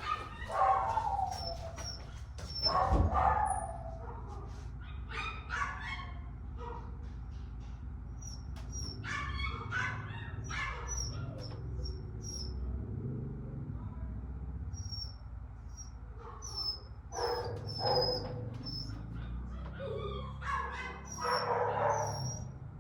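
Puppy whining and yipping in many short, high-pitched cries while left alone behind a door: mild separation distress. A single thump comes about three seconds in.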